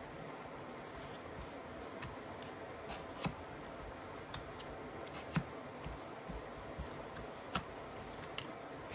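Divination cards being laid down one at a time on a cloth-covered table: a scattering of light taps and clicks, the sharpest about five and a half and seven and a half seconds in, over a steady low hiss.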